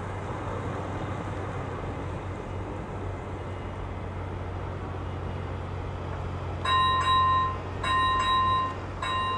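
Czech level-crossing warning bell, an AŽD ZV-01, starts ringing about two-thirds of the way in. It sounds in repeated ringing pulses about once a second over a low steady hum, because the crossing has just activated for an approaching train.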